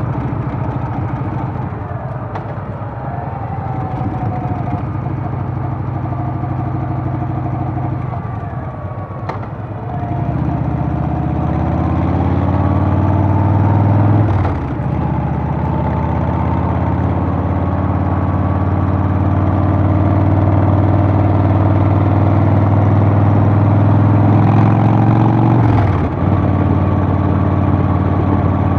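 Harley-Davidson Softail's Milwaukee-Eight V-twin running under way, low and steady at first, then pulling harder from about ten seconds in. The engine note climbs, dips sharply at a gear change about halfway through, then climbs again to another shift near the end.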